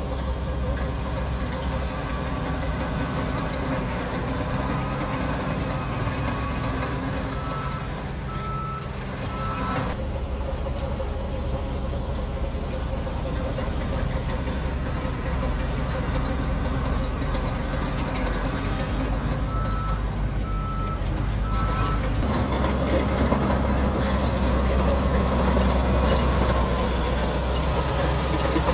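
Shantui DH17C3 bulldozer's diesel engine running under load while working. Its reversing alarm sounds twice, each time as three short beeps at one pitch. The engine sound changes twice and gets somewhat louder near the end.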